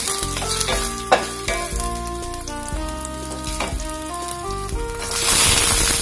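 Garlic cloves and ginger sizzling as they go into hot oil with cumin seeds in a stainless steel pan, with a sharp knock about a second in. The sizzling swells much louder near the end as more is added.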